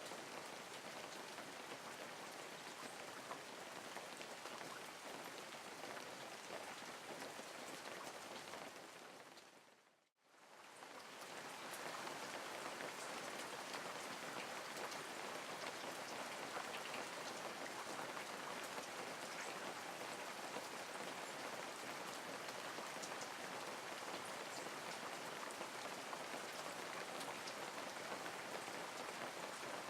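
Steady rain falling, with faint individual drops ticking. About ten seconds in it fades down to near silence and then swells back in, a little louder, and holds steady.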